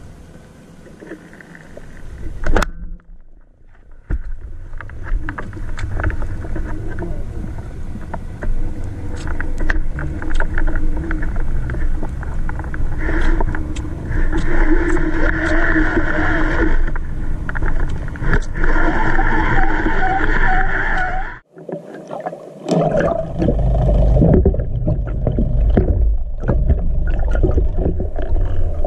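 Underwater sound through a speargun-mounted camera: a single sharp crack about two and a half seconds in, the speargun firing, then water noise with scattered clicks and a steady hum through the middle. In the last few seconds a heavy low rushing and splashing takes over as the diver reaches the surface.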